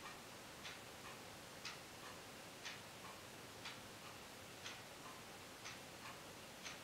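Steady clock-like tick-tock: one sharp tick about once a second, with a fainter, lower tock halfway between each pair.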